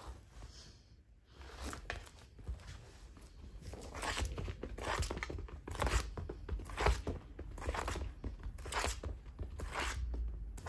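Scratchy rustles and scuffs from a cat playing with a toy on tatami mats, irregular and sparse at first, coming thicker and louder from about four seconds in.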